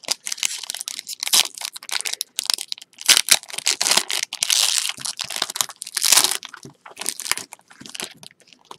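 Plastic wrapping on a trading card box and pack being torn open and crinkled by hand, in irregular crackling bursts.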